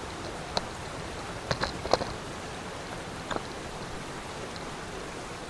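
Steady rush of water from a waterfall and its stream, with a few sharp knocks or clicks over it, three of them close together near the middle.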